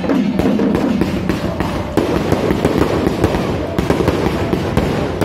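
A string of firecrackers going off continuously: a dense, rapid crackle of bangs with no break.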